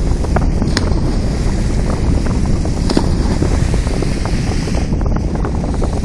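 Wind buffeting the microphone in a steady rumble, over the rush of seawater breaking around a container ship's bulbous bow.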